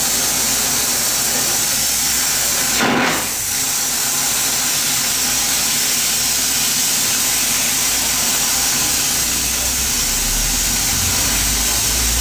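Oxygen-fed bench torch burning with a steady hiss while a glass tube is heated in its flame, with one brief louder burst about three seconds in.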